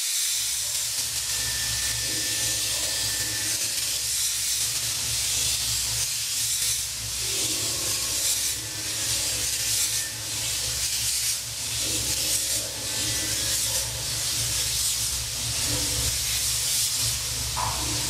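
Steady hissing noise over a low hum, with faint short tones coming and going.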